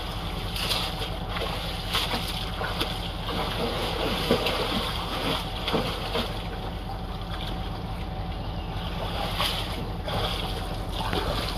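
Irregular water splashing and sloshing as a man in the river tugs a snarl of trash and weeds off the underside of a cargo boat's stern, where it has fouled the running gear. A steady low engine hum runs underneath.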